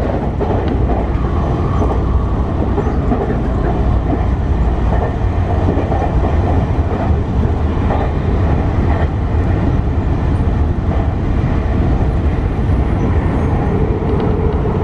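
Sotetsu Line electric commuter train running, a steady rumble of wheels on rail heard from inside the front car.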